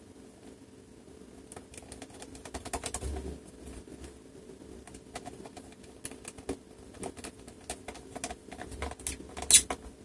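Small screwdriver driving screws into the underside of an HP Pavilion 14 laptop: irregular light clicks and scrapes, with a cluster about three seconds in and one sharp click near the end.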